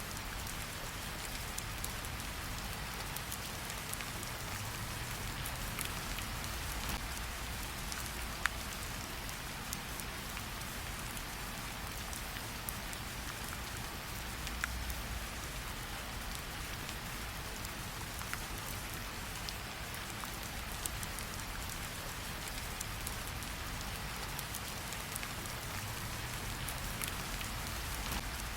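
Steady rain falling, with scattered sharp clicks and pops of a crackling campfire mixed in.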